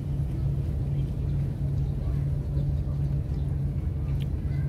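Steady low engine rumble with a pulsing hum, with faint voices in the background.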